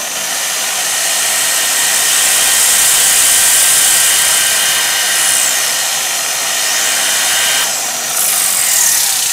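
Rotary polisher spinning a denim pad at about speed 3 or 4 while a masking-tape core is pressed against the pad to scrub out old compound: a steady, loud, high whir with a hissing scrape. Its pitch briefly shifts a couple of times in the second half.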